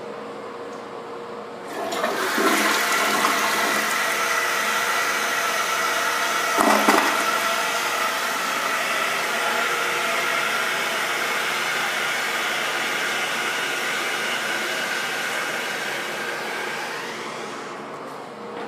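A Crane Plumbing Elite toilet flushing. The water rush starts about two seconds in, with one brief louder surge about seven seconds in. It then runs on steadily and fades out near the end.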